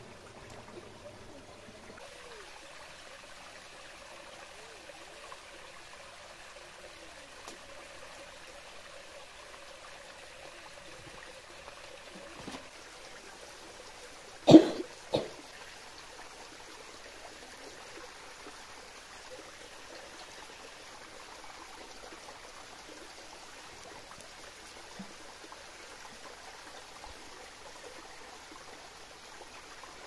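A small waterfall trickling steadily into a rocky stream pool. About halfway through, a person gives two short, loud coughs.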